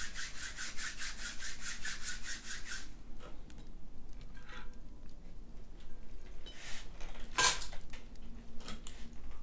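A rapid, even rubbing, about five strokes a second, for the first three seconds. Then scattered light handling sounds as a glass cake dome is lifted off a plate of fried chicken, with a brighter scrape or clink of glass about seven and a half seconds in.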